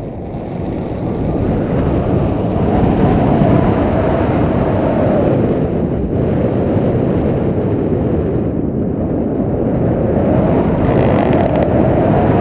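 Wind rushing over a foot-mounted GoPro Hero2 in its housing during paragliding flight: a loud, muffled, low rumble that grows louder over the first two seconds, then holds steady.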